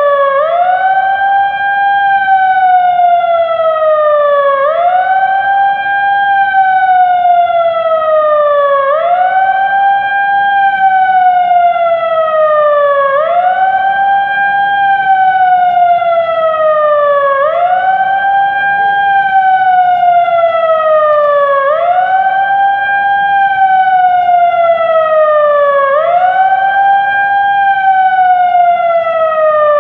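TOA siren wailing in a steady repeating cycle: the pitch rises quickly, then falls slowly, about once every four seconds.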